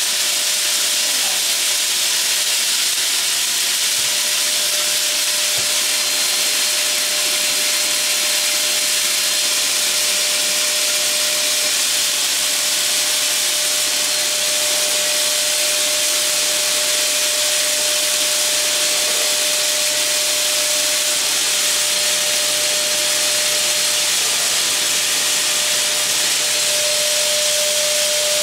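Dirt Devil Power Reach multi-cyclonic bagless canister vacuum running steadily, its floor nozzle worked over carpet: a strong rush of air over a steady motor whine that grows a little stronger near the end.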